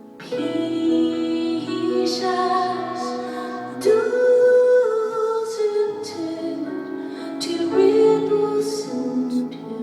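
Live music: a woman singing long held notes over piano accompaniment.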